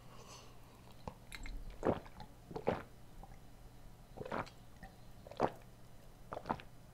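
A person gulping berry lemonade from a glass jar: a series of swallows about a second apart.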